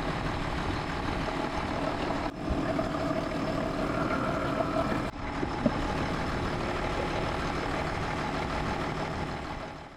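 International 1586 tractor's six-cylinder diesel engine running steadily, broken twice by short cuts.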